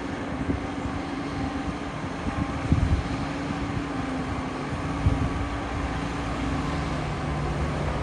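Concrete mixer truck's diesel engine running at low speed with a steady low hum as the truck rolls slowly forward. There are a couple of brief low thumps, about a third of the way in and again near the middle.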